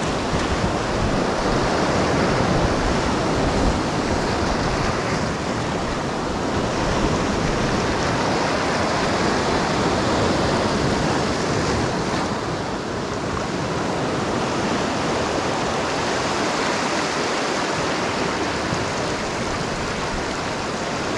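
Sea surf breaking and washing over shoreline rocks close by: a steady rush of foaming water.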